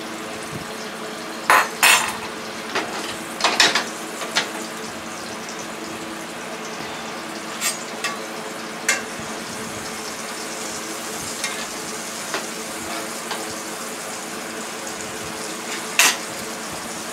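Battered porgy fish frying in oil in a skillet, with a steady sizzle throughout. Metal utensils clink against the pot and are set down on the counter several times, with one sharp knock near the end.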